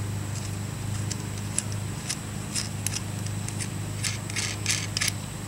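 Small clicks and scrapes of an LED bulb and its wiring being handled and pushed into a metal headlight reflector housing by hand, with a quick run of clicks about four seconds in. A steady low hum runs underneath.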